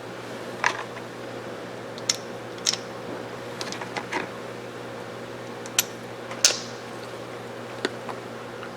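Scattered short clicks and taps, about seven of them, from the parts of a Mossberg 464 lever-action rifle being handled and fitted back together, over a steady background hum.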